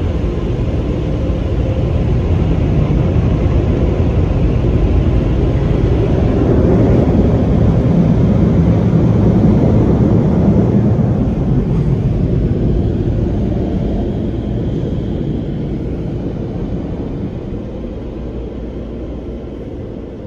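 Car wash AirCannon dryer blowers running, a steady loud rush of air on the car heard from inside it. It swells to its loudest about halfway through, then fades as the car pulls away from the dryers.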